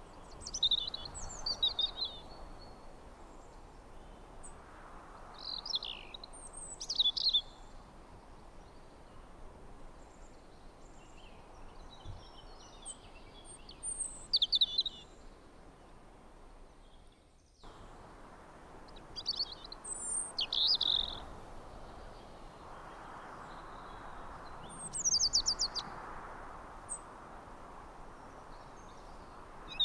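Wild songbirds singing in short, quick chirping phrases every few seconds over a steady background hiss.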